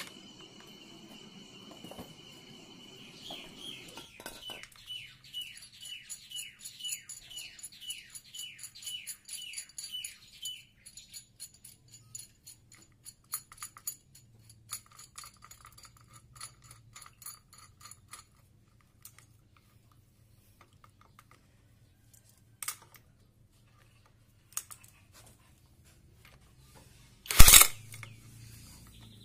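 An electric impact wrench hammers briefly and loudly near the end, undoing the clutch-hub nut on a Yamaha Vega ZR engine while the clutch is held with a strap clutch holder. Earlier, a high chirp repeats about twice a second for several seconds, and a few sharp clicks follow.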